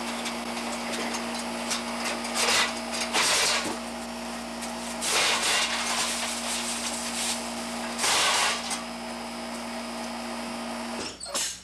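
Steady electric hum of an outdoor air-conditioning condenser unit running, broken several times by short, loud scuffs and clatters as a ladder is climbed down and handled. The hum cuts off about eleven seconds in.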